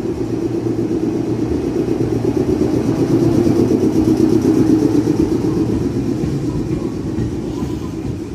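Meitetsu electric train pulling away from the platform: motors and wheels rumbling on the rails, growing louder as it gathers speed, then fading as it moves off in the last few seconds.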